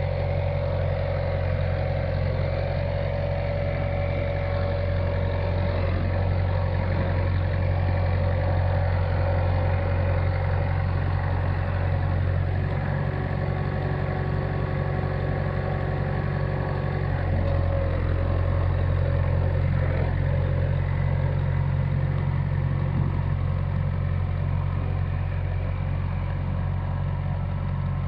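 Old early-1970s John Deere backhoe's engine running steadily at idle.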